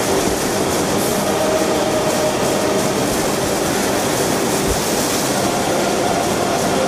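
Steady rushing roar of a wide, low river waterfall pouring over a rock ledge, with moving river water around the kayak.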